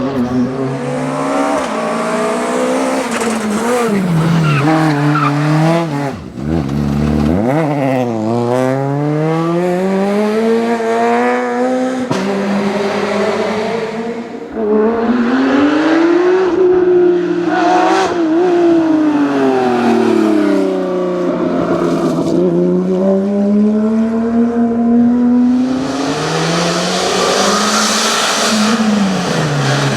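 Rally car engines driven flat out, revving up and dropping back through repeated gear changes as the cars pass, with a sharp drop and rise in pitch as one goes by about seven seconds in. Tyres squeal in places.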